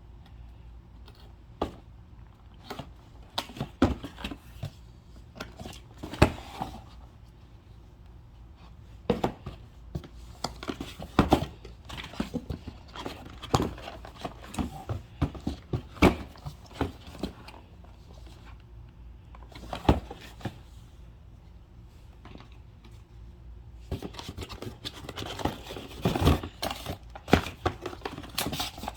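Packaging being handled during an unboxing: scattered crinkling, clicks and knocks, coming thicker and faster about five seconds before the end.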